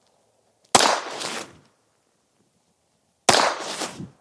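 Two unsuppressed shots from a Ruger Mark IV 22/45 Lite pistol firing Aguila subsonic .22LR, about two and a half seconds apart. Each is a sharp crack followed by a short echo.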